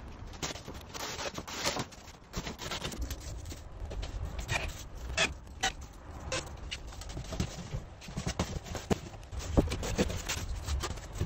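Irregular scrapes, taps and knocks from handling rigid blue foam insulation board and fitting it over a roller-shutter box, with a low background rumble.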